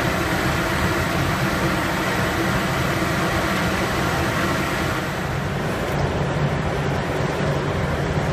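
Industrial UV curing tunnel and its powered roller conveyor running: a steady machine drone and whir with a low hum underneath. The hiss at the top softens a little about five seconds in.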